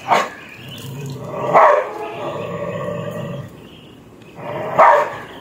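Dog growling in a steady low rumble, with three louder barks: one right at the start, one about a second and a half in, and one near the end. It is warning off a man who is trying to touch it.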